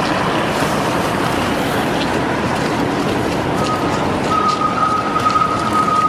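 A Helsinki tram approaching over steady street noise. About three and a half seconds in, a steady high-pitched whine sets in and grows stronger, then holds.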